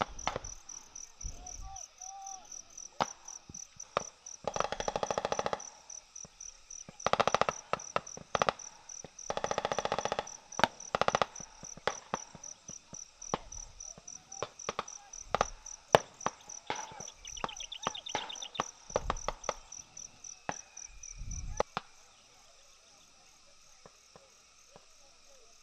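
Several short bursts of rapid gunfire, with scattered single shots, over insects chirping in a steady high pulse. The insect sound stops near the end.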